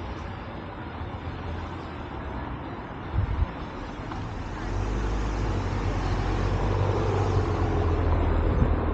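A car passing close by at low speed, its engine and tyre noise building through the second half and loudest near the end.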